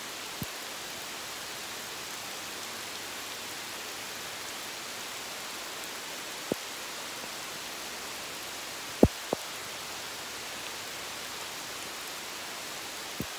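Steady rain falling on the leaves of the woodland trees, an even hiss, with a handful of sharp single taps, two of them close together about nine seconds in.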